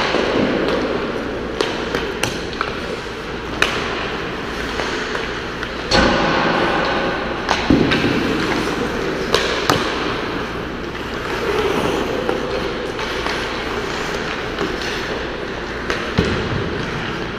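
Ice hockey practice rink sounds: a steady scrape of skates on the ice with a dozen or so sharp clacks of pucks and sticks, some of them pucks hitting the boards and glass, ringing in the echoing arena. The loudest hits come about six and about eight seconds in.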